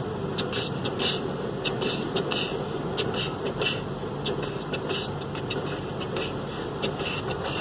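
Passenger train passing a level crossing, heard from inside a stopped car: a steady rumble with frequent, irregular clicks.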